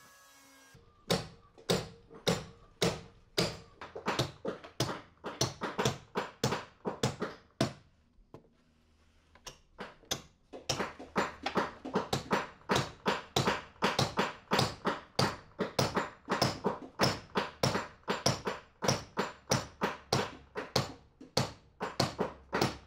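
Hammer blows at the planking of a wooden boat hull, a steady run of sharp strikes at about three a second. It stops briefly a third of the way through, then starts again.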